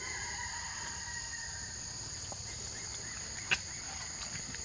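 Steady high-pitched drone of insects, two unbroken tones, with a faint falling tone over the first two seconds and one sharp click about three and a half seconds in.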